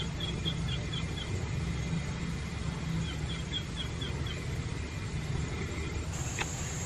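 Low steady rumble with two short runs of faint, high, rapid chirps, about six a second, and a single click near the end.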